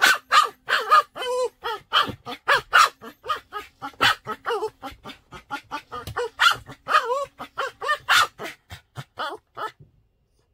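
Small dog barking in a rapid run of short, high yaps, about three or four a second, then falling quiet shortly before the end.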